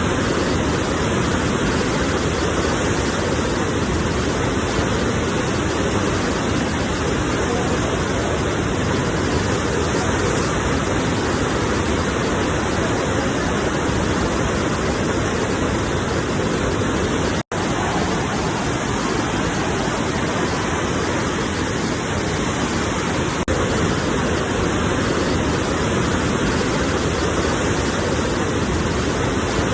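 Sea waves making a steady, even rush of surf with no distinct breaks. The sound cuts out for an instant a little past halfway through, then resumes unchanged.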